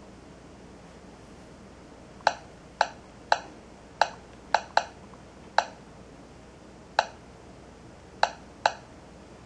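Ten short, sharp clicks at uneven intervals, starting about two seconds in, one for each key tapped on a Garmin 2699 LMT HD GPS's touchscreen keyboard while a search name is typed.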